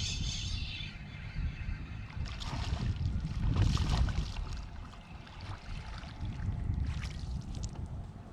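Wind buffeting the microphone with a low rumble, and water splashing and lapping against the boat in irregular bursts, strongest about two to four seconds in.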